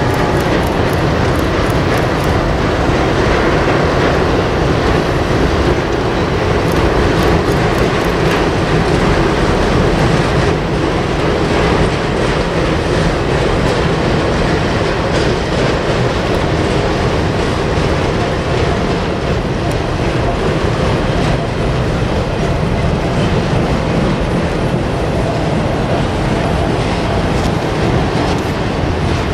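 Norfolk Southern double-stack container train, led by an AC44C6M diesel locomotive, running across a girder bridge: a steady loud mix of engine and wheel noise. Groups of rapid wheel clicks come about a second in and again around seven seconds in.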